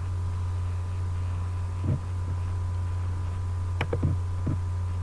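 Steady low electrical hum with a faint thin higher tone above it. A few soft knocks and one sharp click come in the second half.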